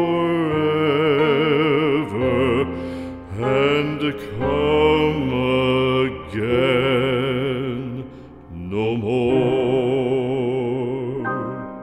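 Background music from a slow ballad: a voice holds long notes with vibrato over soft accompaniment, and the music fades near the end.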